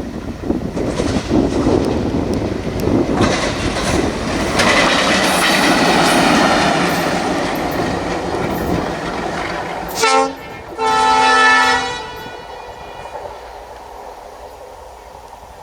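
WDG-3A diesel locomotive running light, without coaches, passing at speed: its engine and wheel noise builds up to a loud rush. About ten seconds in it sounds its horn, one short blast and then a longer one of about a second, and the noise then fades away.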